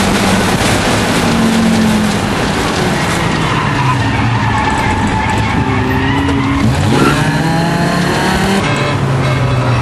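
An Audi race car's engine heard from inside the cabin, running under load with its note shifting as the throttle and gears change, and a quick rising rev about seven seconds in. Tyres squeal through the corner.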